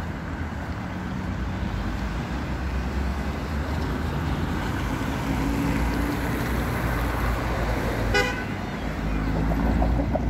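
City street traffic: cars passing with a steady low rumble of engines and tyres, and a short car-horn toot about eight seconds in.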